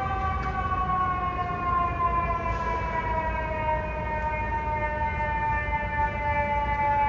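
FDNY fire engine's siren winding down, one sustained tone whose pitch falls slowly and smoothly, over a low street and engine rumble.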